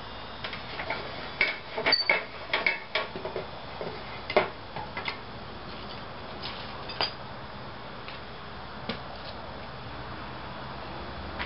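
Perforated steel strap clinking and knocking against a workbench's wooden vise jaws as it is bent and pulled free. A cluster of sharp metallic clicks and knocks comes in the first five seconds, then a few scattered ones.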